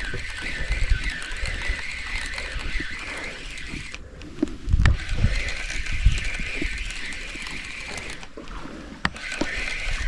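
Spinning reel being cranked steadily to bring in a small fish, its gears whirring, with two short pauses in the winding. Low rumbling thumps of wind and surf come in around the middle, along with a couple of sharp clicks.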